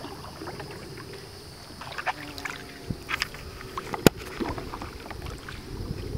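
Kayak paddle strokes: the blades dip and splash in the water at intervals, with a single sharp knock about four seconds in.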